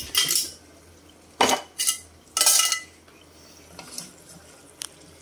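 Metal cookware and utensils clattering: a few sharp clanks and scrapes in the first three seconds, then a couple of faint ticks.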